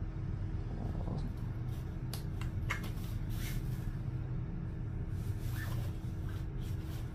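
Handling noise from a speaker cabinet being picked over by hand: scattered light clicks, knocks and brief scrapes over a steady low hum.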